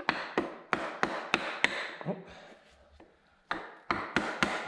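Hammer striking a block of wood held against the top end of a BMW S1000RR engine, tapping a bolted part loose. Sharp knocks about three a second, a pause of about a second and a half, then another quick run of knocks.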